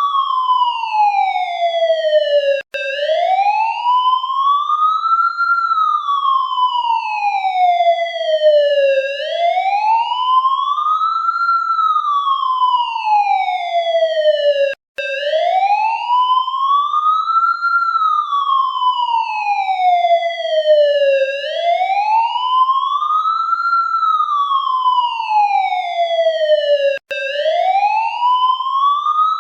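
Police siren in a slow wail: one pitched tone that glides up and down, rising for about three seconds and falling for about three, over and over. There are three very brief dropouts, about twelve seconds apart, each at the low point of a sweep.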